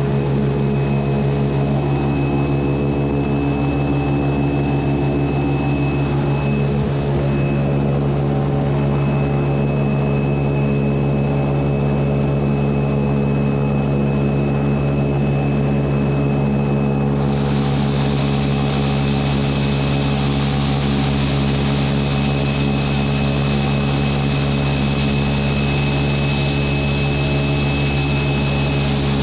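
Airboat's 383 stroker V8 and its propeller running at a steady cruising speed, with a thin, steady high whine above the engine. The rushing noise above it gets louder about two-thirds of the way through.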